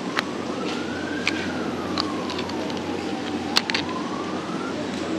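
An emergency vehicle siren wailing, its single tone rising and falling slowly, over a steady background murmur and a few sharp clinks.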